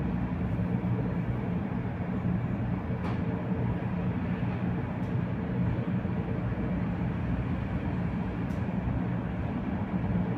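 Steady low hum inside a Tatra T3R.PLF tram standing still at a stop, with no wheel or rail noise, and a few faint ticks.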